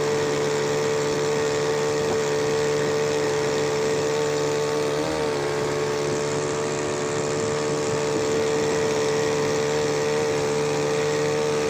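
Small Matsumoto two-stroke outboard motor running at a steady speed with the boat under way. There is a brief wobble in pitch about five seconds in.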